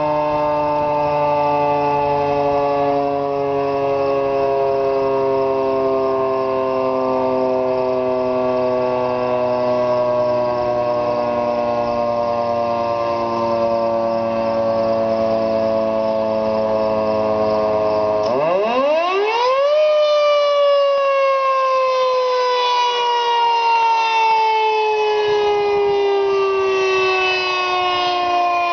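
Federal Signal 3T22 three-tone outdoor warning siren sounding a chord that slowly falls in pitch. About two-thirds in, the lower tones drop out and the pitch rises quickly, then begins falling slowly again.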